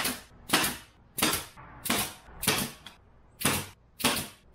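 Pneumatic brad nailer firing 5/8-inch brad nails through quarter-inch plywood into a wooden frame: a steady run of sharp shots, roughly three every two seconds.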